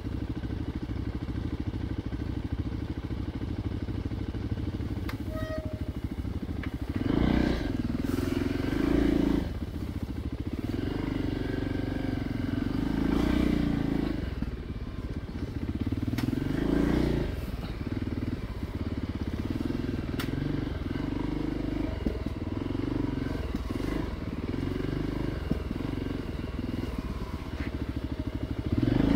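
Single-cylinder dual-sport motorcycle engine running at low speed, with the throttle opened in short bursts several times, the loudest at about seven to nine seconds in, again around thirteen and seventeen seconds, and once more at the very end.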